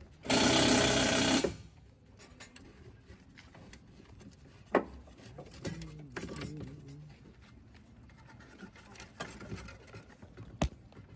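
Cordless impact wrench running in one short burst of about a second, followed by a few sharp clicks of metal parts and tools being handled.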